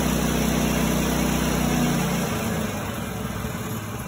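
Woodland Mills HM130Max sawmill's gas engine running steadily at full throttle, then dropping about two seconds in to a lower, quieter, pulsing idle.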